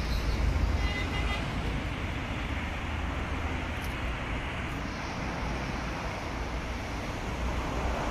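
Steady low rumble of outdoor background noise, with a brief faint high tone about a second in.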